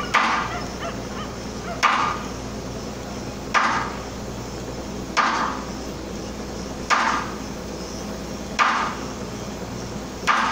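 A short, sharp sound repeating at a very even pace, seven times, about one every 1.7 seconds, over a steady low hum.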